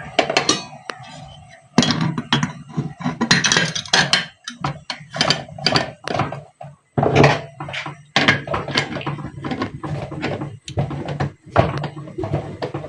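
Kitchen clatter: repeated knocks and clunks of pots and cooking utensils being handled, coming thick and fast.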